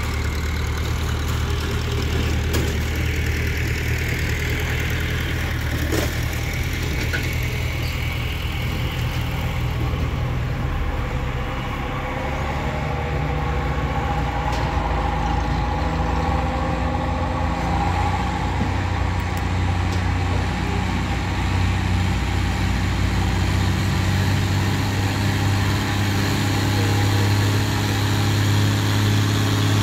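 John Deere farm tractor engine running under load as it pulls a sled down the pull track: a steady engine note that grows louder near the end.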